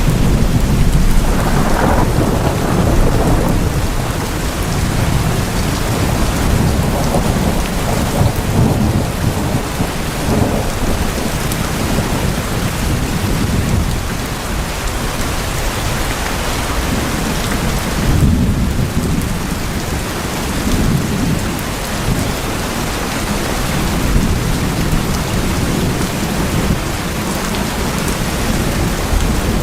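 Heavy rain drumming steadily on tin roofs, with low rumbles of thunder swelling and fading underneath.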